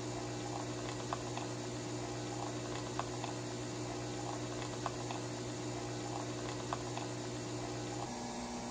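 Nespresso Virtuo coffee machine brewing: a steady mechanical hum as it spins the capsule, with coffee streaming into a mug and faint ticks about every two seconds. About eight seconds in the hum shifts to a lower note. The coffee is running in a good flow from the main spout, the sign that the leak is fixed.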